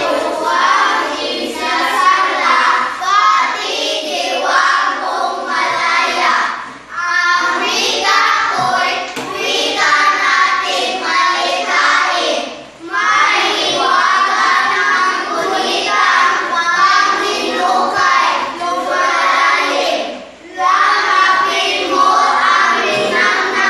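A group of children singing together in chorus, in long phrases broken by brief pauses about every six to seven seconds.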